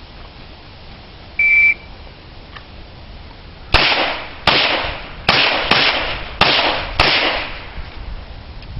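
A shot timer's start beep, one short high tone, then about two seconds later six pistol shots fired over about three seconds, each ringing out briefly.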